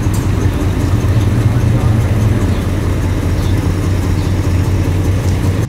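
Engine of a classic Mopar convertible running steadily and low-pitched as the car rolls slowly past at low speed.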